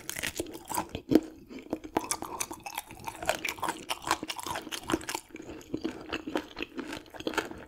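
Close-miked chewing of raw gizzard shad, with many irregular crisp crunches as the small bones are bitten through.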